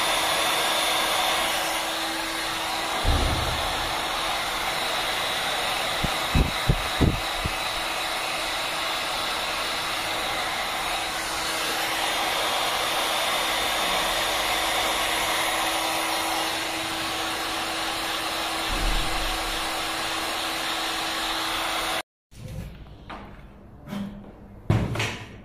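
Hot air gun blowing steadily as it heat-shrinks a tube sleeve onto a splice closure's cable port, with a faint steady hum under the rush of air and a few light knocks. It cuts off abruptly near the end, leaving a few knocks of the plastic closure being handled.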